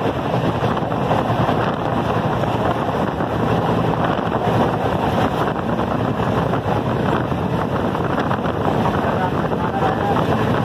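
Running noise of a moving train: a steady, loud rush of wheels on rail and wind against the microphone.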